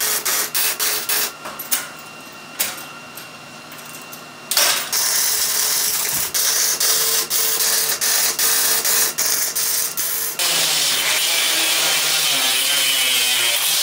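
Arc welding on steel crackles and spits in irregular runs, with a quieter stretch after about a second. About ten seconds in, an angle grinder's cut-off wheel starts cutting through expanded steel mesh with a steady loud hiss.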